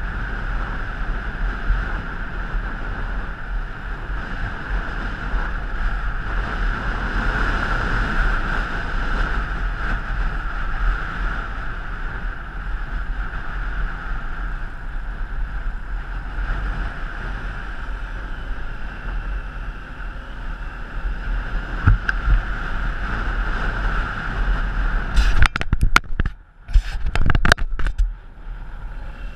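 Steady rush of wind over the microphone mixed with the running noise of a moving vehicle on the road. Near the end comes a short cluster of sharp crackles with brief cutouts.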